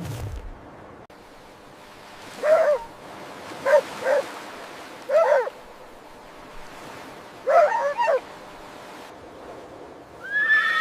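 A dog giving short yips and barks, about seven in loose groups with pauses between them.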